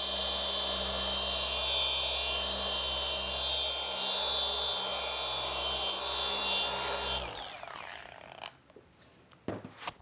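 Cordless car polisher running with an orange foam pad pressed on painted door panel: a steady motor hum under the hiss of the pad rubbing polish into the paint to cut out bird-dropping etching. About seven seconds in it is switched off and spins down, followed by a few light knocks.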